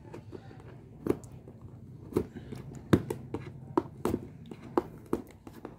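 Hands handling and prying at a tight-fitting cardboard headphone box to open it: scattered, irregular clicks and taps of card and packaging.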